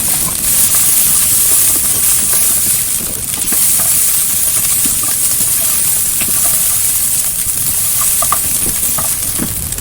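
Day-old rice frying in hot oil in a pan, a steady sizzle, with a few faint clicks.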